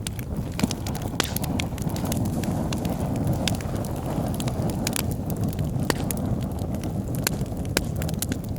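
Wood fire burning in a fireplace: a steady low rumble of flame with irregular sharp crackles and pops from the burning logs, several a second.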